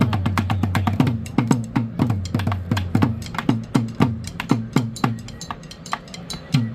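Percussion played on improvised everyday objects: a fast rhythm of sharp clicks over low drum-like thuds, roughly two a second, each thud dropping in pitch just after it is struck.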